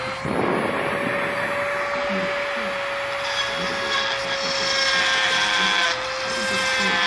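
Dremel rotary tool running at one steady high whine. About three seconds in, its small bit starts grinding against the end of a knife handle, adding a rough grinding noise over the whine.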